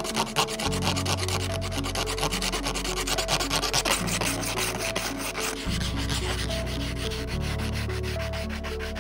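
Fine sandpaper rubbed by hand in quick repeated strokes along the cut edge of a frosted acrylic panel's circular fan cutout, smoothing the rough edge left by the coping saw.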